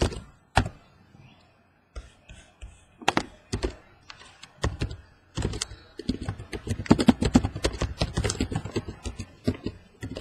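Typing on a laptop keyboard close to the microphone: scattered key clicks and taps at first, then fast, continuous typing over the last few seconds.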